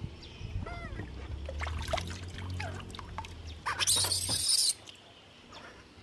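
Baby monkey giving short, arched squeaking calls while being bathed, then a loud splash of water about four seconds in. A steady low hum runs underneath and stops just after the splash.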